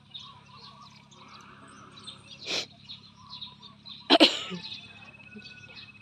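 Two short sneeze-like bursts of breath about a second and a half apart, the second much louder, over faint bird chirping.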